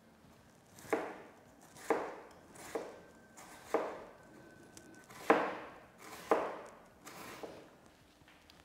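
Kitchen knife slicing an onion on a plastic cutting board: about seven sharp chops, roughly one a second, each blade stroke ending in a knock on the board.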